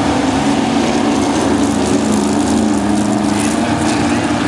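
Several dirt-track stock car engines running hard together as the pack drives through a turn, making a continuous loud drone.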